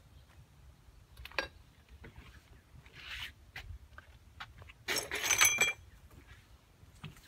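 Scattered clicks and rustles of a person walking through leafy undergrowth and brushing against foliage, with one louder rustling, clinking burst about five seconds in.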